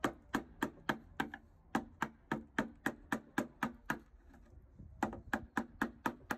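Wood chisel cutting into a mahogany board in quick, short strokes: a steady series of sharp taps, about three or four a second, with a brief pause a little past halfway.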